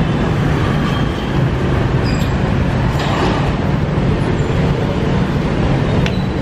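Street traffic: motorbikes and cars passing with a steady engine rumble. A few short, high clinks sound over it, around two seconds in and near the end.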